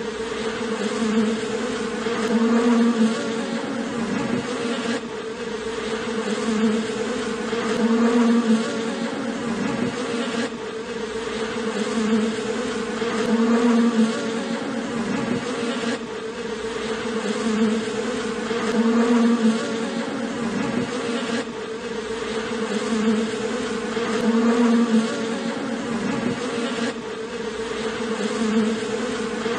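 A colony of honeybees buzzing around their exposed combs: a dense, steady hum that swells and eases in a regular cycle about every five and a half seconds.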